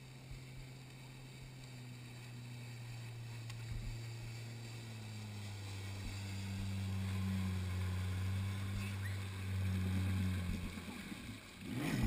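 Jet ski engines running at low speed: a steady hum, joined by a second jet ski's engine that grows louder as it comes in close, then drops away about eleven seconds in. A short rush of water splashing near the end.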